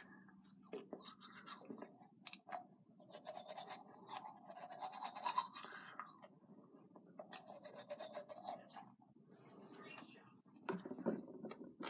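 Teeth being brushed with a manual toothbrush: faint, quick, irregular scrubbing strokes with short pauses.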